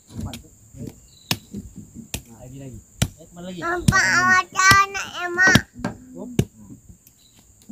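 Parang (machete) chopping at stumps and roots, sharp strokes about once a second, over a steady high drone of insects. A small child's high voice calls out in the middle.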